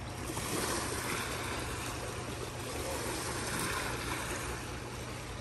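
Steady rush of flowing water with no distinct events.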